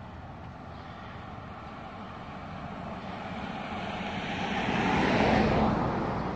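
A car driving past on the street, growing louder to a peak about five seconds in, then fading.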